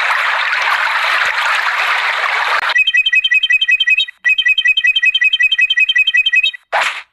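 Cartoon sound effects: a hissing rush of noise for about two and a half seconds, then a rapid, even twittering of high chirps, about nine a second, broken once near the middle, and a short burst of noise near the end.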